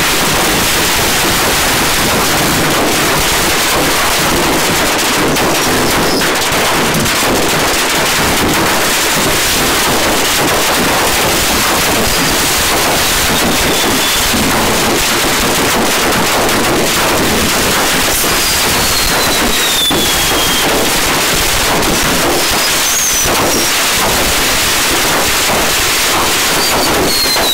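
Fireworks going off in a continuous, dense barrage of crackling bangs. Several whistles falling in pitch sound through it, mostly in the second half.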